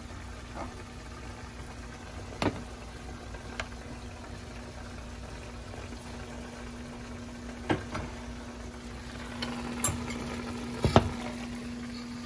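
Metal spoon clinking against a ceramic plate while serving boiled pasta: several sharp clinks, the loudest pair near the end, over a steady low hum and hiss from the kitchen.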